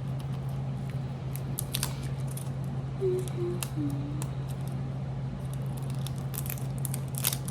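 Scattered small clicks and crackles of fingers prying at the seam of a plastic blind-box ball, struggling to open it, over a steady low hum.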